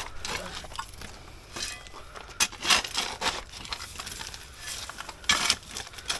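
Irregular scraping and crunching strokes of soil and gravel being dug out and gathered by hand in a trench, several strokes with the loudest near the middle and near the end.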